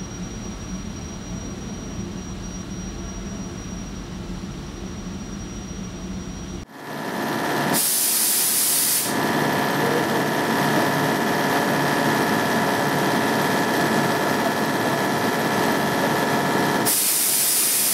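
CNC milling machine running a 90° shoulder-milling face cutter through AISI 4340 steel: a steady machining noise with several held tones, which jumps louder about seven seconds in. Two bursts of loud high hiss come in, about a second long near eight seconds and again near the end.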